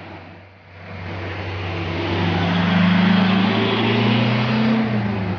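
Truck engine revving up, rising in pitch and loudness over a few seconds, then easing off near the end.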